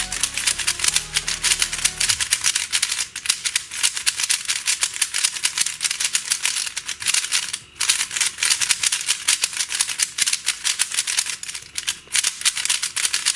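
MoFang JiaoShi MF3RS3M magnetic 3x3 speed cube being turned fast, its plastic layers clicking and clattering in a rapid, continuous stream, with a brief pause just past halfway. The turning is quite loud, which is put down to the new cube still being dry and unlubricated.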